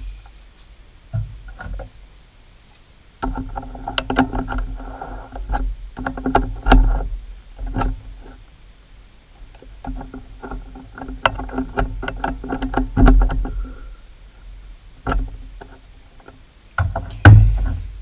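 Metal lathe chuck and gear train being worked by hand: two long stretches of steady whirring shot through with rapid clicks, with metal-on-metal clinks as a washer and parallels are set in the jaws and the chuck is tightened. A loud clunk near the end.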